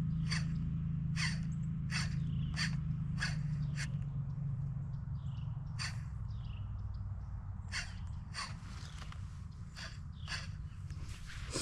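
Footsteps crunching over rough ground at a steady walking pace, about one and a half steps a second, over a low steady rumble that fades.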